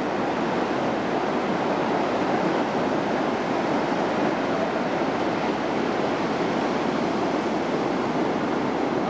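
Ocean surf washing on the shore: a steady, even rush of breaking waves.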